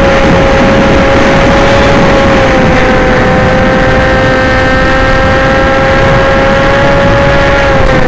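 Electric motor and propeller whine of a radio-controlled aircraft in flight, a steady high note that drops slightly in pitch about two and a half seconds in and again near the end, over heavy rushing wind and prop noise.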